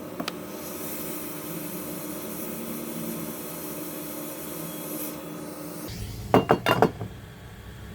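Small hand tools working on a laptop motherboard as a shorted capacitor is removed: a faint steady hiss with a light hum, then a quick run of sharp clicks and taps about six seconds in.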